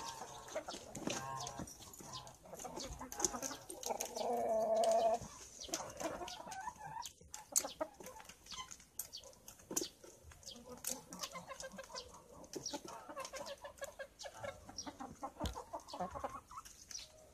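Chickens clucking, with one longer drawn-out call about four seconds in, over many short scattered taps.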